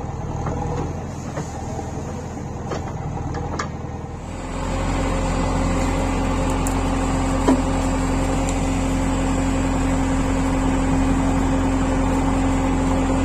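Heavy diesel engine running. About four seconds in it suddenly gets louder and settles into a steady, strong drone with a held whine.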